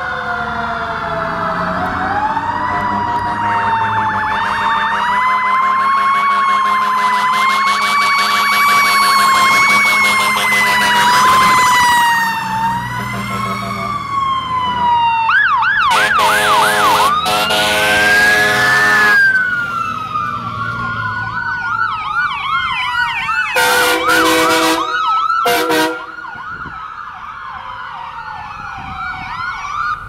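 Fire engine sirens wailing up and down. About halfway through they switch to a fast yelp, and a long air horn blast cuts in. A few shorter air horn blasts follow a little later.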